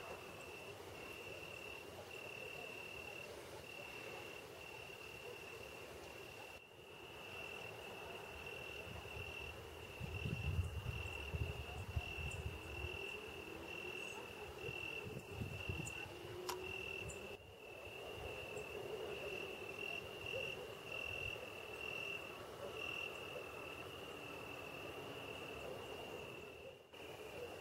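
Insect trilling steadily at one high pitch, pulsing slightly, with a few low thumps about ten to sixteen seconds in.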